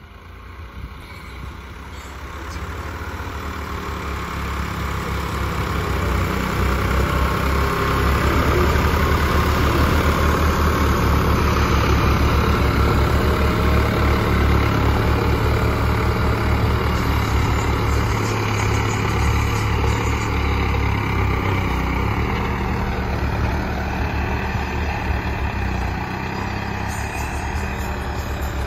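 Two diesel tractor engines, a Mahindra Arjun and a blue New Holland, coupled in tandem and working under load to pull a LEMKEN mounted plough through heavy soil. The steady low engine rumble grows louder over the first several seconds as they approach, then eases a little after the middle as they pass.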